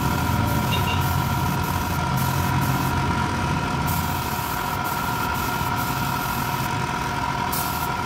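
Air compressor running steadily: a low rumble with a constant whine over it.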